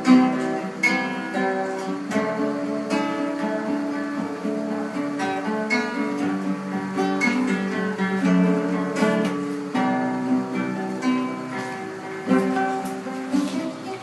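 Acoustic guitar (violão) playing a hymn, strummed and plucked chords.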